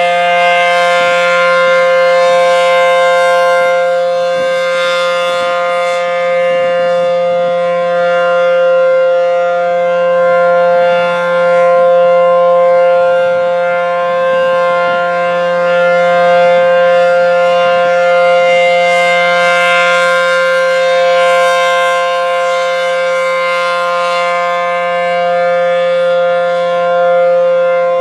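ACA P-10 civil defense siren sounding a steady, held tone with a stack of overtones, its loudness swelling and fading slightly.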